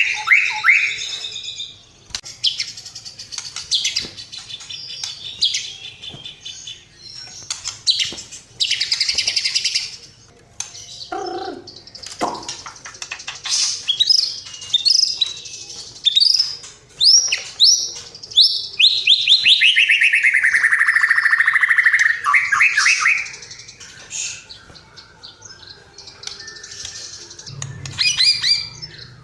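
Songbirds singing in a dense, varied run of chirps, whistles and rapid trills, with a long trill sliding down in pitch about two-thirds of the way through.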